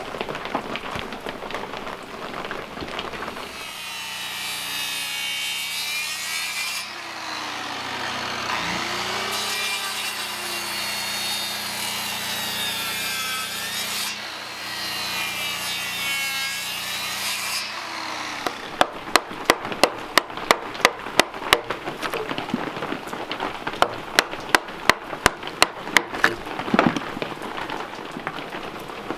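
Norwood portable bandsaw sawmill running steadily while its blade cuts through a log, the pitch rising and falling. About two thirds of the way in it gives way to sharp, regular sawing strokes at about two a second.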